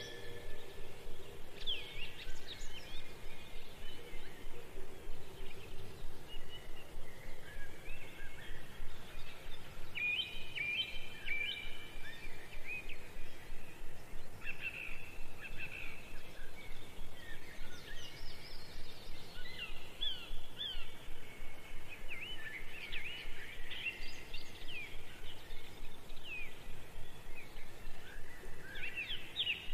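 Small birds chirping and twittering: many short, quick calls and trills keep going without a break.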